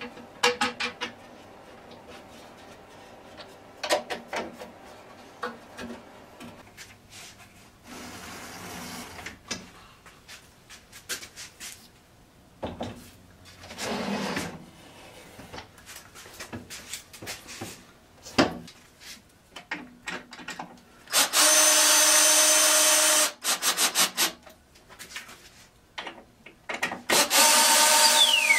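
Wooden jig parts and a log knocking and sliding on a metal bandsaw table, then a cordless drill driving screws through the jig into the log in two loud spells of about two seconds, the second near the end.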